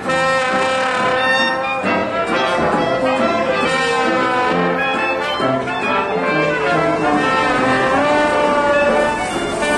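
Music led by brass instruments, playing held notes and a moving melody.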